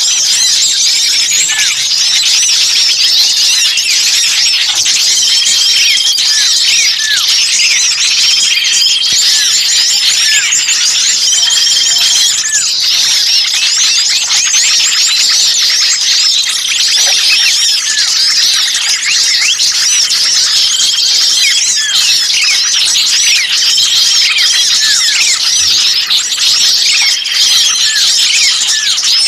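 Dense, agitated chattering of many small songbirds calling at once: a bird-luring recording of an excited flock of small birds. A flat whistled note about a second long recurs several times through the chatter.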